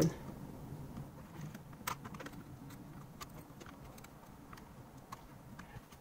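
Scattered light plastic clicks and taps from hands and a small screwdriver working among the bare optical switches of a Keychron K4 keyboard as its plate screws are driven back in. The clearest click comes about two seconds in.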